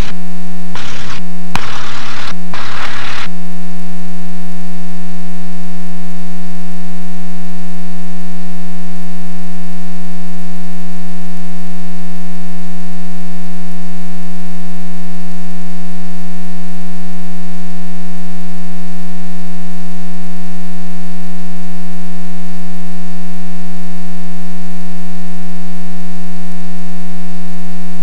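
Loud, steady electrical buzz with many overtones, the hum of interference in a cockpit intercom audio feed. A few short bursts of hiss-like noise in the first three seconds.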